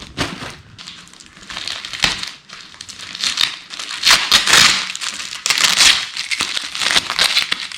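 Packaging being handled and opened: irregular crinkling and rustling of plastic and cardboard, loudest about four and six seconds in.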